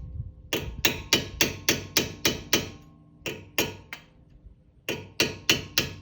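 Hammer tapping a pointed punch to drive the lower pad-retaining pin out of a Brembo front brake caliper: sharp metallic taps with a short ring, about three a second, in three runs of eight, two and four with brief pauses between.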